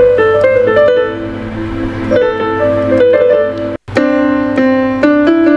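Yamaha PSR-E373 portable keyboard played in a piano voice: a melody over chords, broken by a brief dropout a little before four seconds in, after which the playing resumes.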